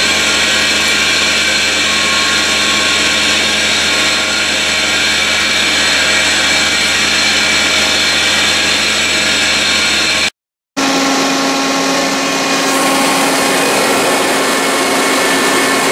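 Rotary screw air compressor running steadily under power, a loud constant hum with many fixed tones. The sound cuts out briefly about ten seconds in and resumes with a changed tone pattern, including a clear low tone.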